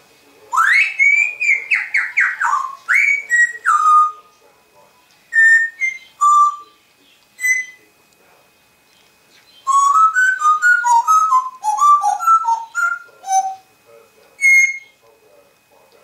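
African grey parrot whistling. It gives two quick runs of short whistle notes that slide up and down, with clicks mixed in: one starts about half a second in, the other about ten seconds in. Single whistles come in the gaps and near the end.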